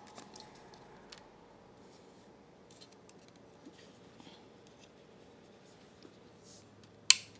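Faint handling sounds of a DJI RS C2 gimbal being adjusted for balance by hand: a few light clicks and rubs, then one sharp click near the end.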